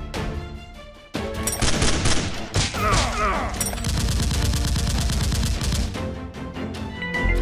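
Rapid gunfire sound effects in long bursts, like automatic weapons, over background music; they start suddenly about a second in.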